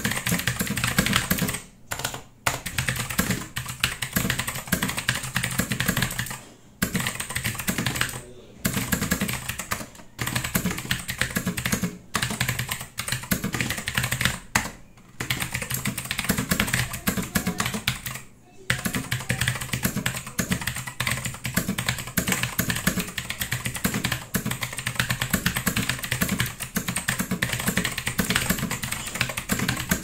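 Fast, continuous typing on a Mech Haus KL mechanical keyboard with Gateron Blue clicky switches: a dense stream of sharp key clicks, broken by a few brief pauses.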